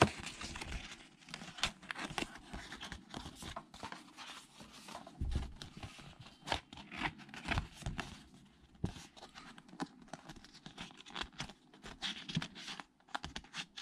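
Cardstock rustling and scraping in short, irregular bursts with light clicks as a holographic paper insert is slid inside a folded cardstock card.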